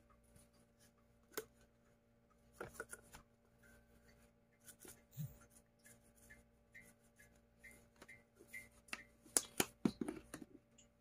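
Soft, scattered rattles and taps of a plastic spice shaker of dried Italian seasoning being shaken over chicken pieces, busiest near the end.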